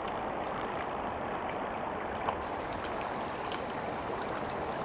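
Shallow rocky creek running steadily, with a single faint knock a little over two seconds in.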